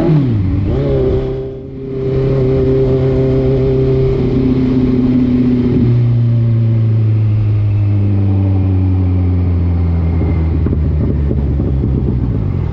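Motor vehicle engine under way: its pitch drops sharply right at the start as a gear is changed, then it runs steadily. It shifts again about six seconds in and its pitch eases slowly down toward the end.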